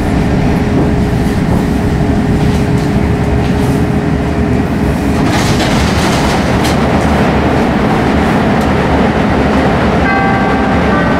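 Inside a CTA 2600-series rapid-transit car running through a subway tunnel: a loud, steady rumble of wheels and running gear. A steady hum carries through the first half, and a brief whine of several pitches comes in near the end.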